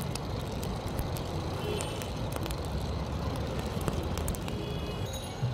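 Steady low rumble of street traffic, with scattered small crackles from a charcoal fire roasting a corn cob.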